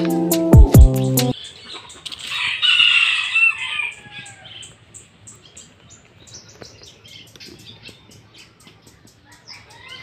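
Background music stops about a second in; then a rooster crows once, loudly, with a falling pitch. Faint bird chirps follow.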